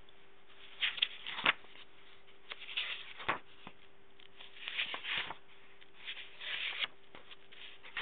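Paper pages of a book being handled and turned by hand: four bursts of rustling and flapping paper about two seconds apart, with a faint steady hum underneath.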